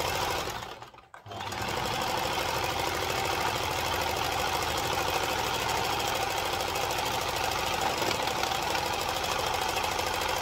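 Domestic electric sewing machine running steadily as it stitches a seam through layers of fabric and interfacing. It stops briefly about a second in, then runs on at an even speed.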